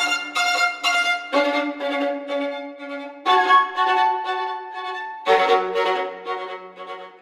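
Violin playing a slow, lyrical passage of bowed sustained notes and double stops, with fresh, stronger phrases beginning about three and five seconds in and the last note fading near the end.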